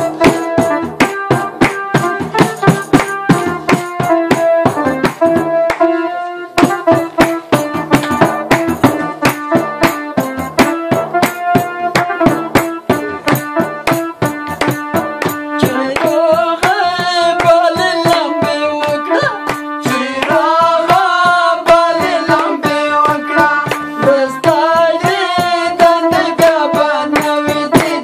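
Folk music: an electronic keyboard plays a held-note melody while a hand-struck frame drum keeps a fast, steady beat. About halfway through, a man's voice starts singing with a wavering vibrato.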